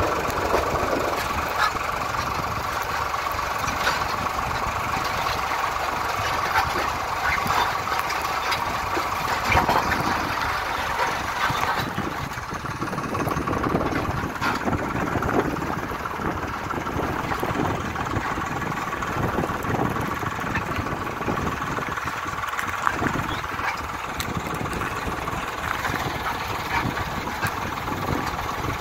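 Diesel tractor engine running steadily. About midway a steady tone in its sound fades and a lower, pulsing engine note takes over.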